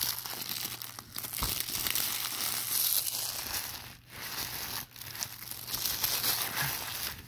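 Plastic shrink wrap being torn off a Blu-ray case and crumpled in the hand: a dense, continuous crinkling with two brief pauses a little past the middle.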